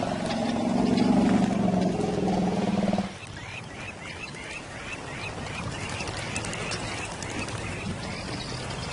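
A low, steady animal growl with a clear pitch lasts about three seconds and cuts off abruptly. Then a bird gives a quick run of short chirps, about three a second.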